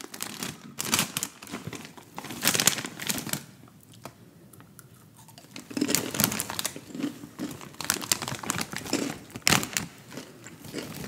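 Takis chip bag, a foil-lined plastic snack bag, crinkling in repeated bursts as it is handled and turned over, with a quieter lull about four seconds in.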